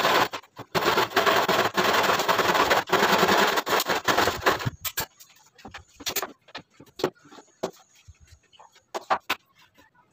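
Wooden crib parts being handled on a tile floor: a loud, rough scraping for the first four or five seconds, then scattered light knocks and clicks of wood.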